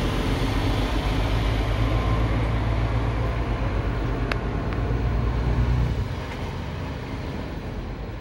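Low, steady rumble of a vehicle engine running close by, fading about six seconds in. A single sharp click about four seconds in.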